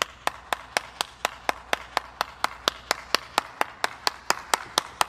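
One person clapping their hands in a steady rhythm, about four claps a second.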